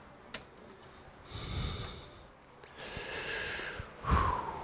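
A man breathing out hard through the nose twice, then a louder short sigh with a falling pitch near the end. There is a single sharp click just before the first breath.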